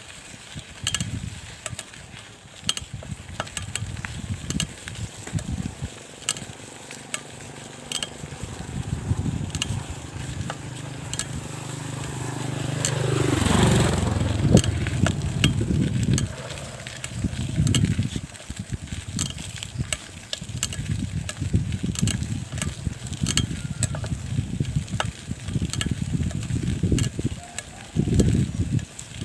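Bicycle being ridden: irregular rattling and clicking over a low rumble. About halfway through, a vehicle passes, its sound rising and then falling away.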